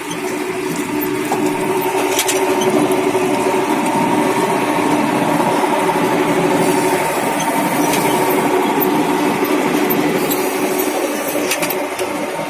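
Brick-making machine running steadily: a loud mechanical drone with a steady hum, building up over the first second.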